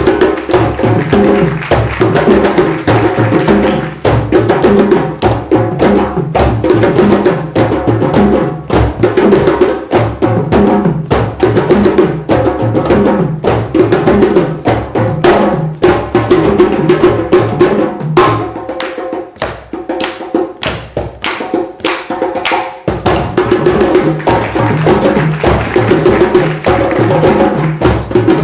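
A drumming group playing together: a fast, busy rhythm of many drum and wood-block strikes. The lower drums drop out for a few seconds past the middle, leaving lighter, higher strikes, then the full group comes back in.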